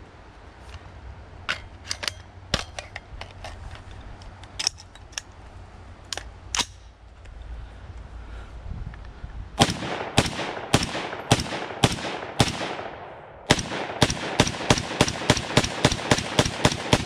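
DiamondBack DB15 AR-15 rifle in 6.5 Grendel fired rapidly semi-automatic, about twenty sharp shots starting about ten seconds in. The shots come in two strings with a short pause between them, and the second string is faster. Before the shooting there are only a few light clicks.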